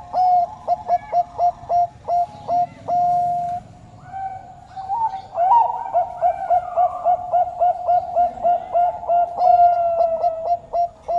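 Bangkok turtledove cooing: fast strings of short clipped coos, about three to four a second, broken by a few longer held notes.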